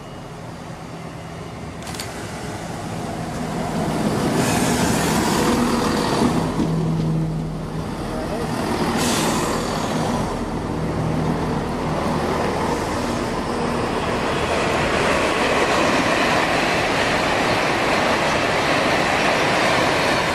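CrossCountry Class 170 Turbostar diesel multiple unit pulling in alongside the platform, its underfloor diesel engines running with a steady low hum and two short hisses. A broader rushing noise builds in the second half.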